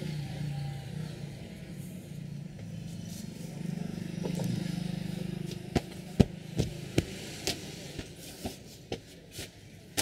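Street traffic rumbling in the background. A little past halfway, a run of about ten sharp slaps starts, roughly two a second: a barber's hands striking during a head massage.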